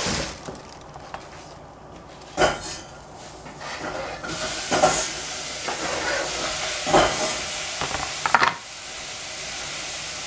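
Sliced red onion scraped off a plastic cutting board with a cleaver into a pan, giving four sharp clatters and scrapes. A steady hiss from the stove sets in about four seconds in.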